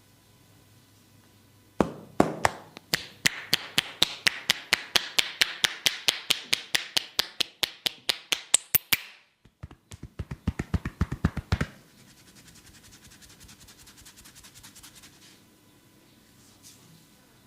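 Massage strokes of a barber's hands striking the body in a fast, even rhythm of sharp taps, about five a second for some seven seconds. After a brief pause comes a quicker, shorter run of taps, then a faint rapid patter.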